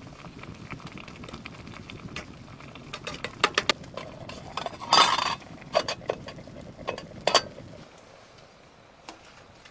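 Cookware and utensils being handled: a series of sharp clinks and knocks, one louder clatter about five seconds in, over a steady low hiss that fades near the end.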